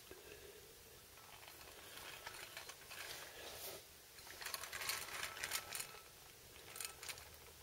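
Faint clicking and rattling from a die-cast Caterpillar D350D articulated dump truck model as its parts are worked by hand and it is moved on a hard floor, with clusters of quick clicks about halfway through and again near the end.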